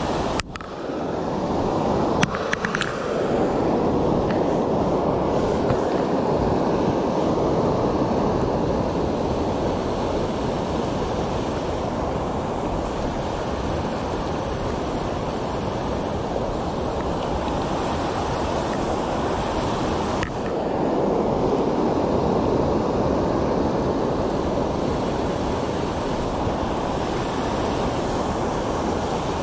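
Steady rush of river water spilling over a low weir, with a couple of brief clicks in the first few seconds.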